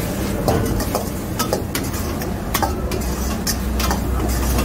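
Steel ladle stirring chicken in a steel wok: irregular clanks and scrapes of ladle on wok, about two a second, as the chicken is tossed with the cornflour thickener. A steady low rumble runs underneath.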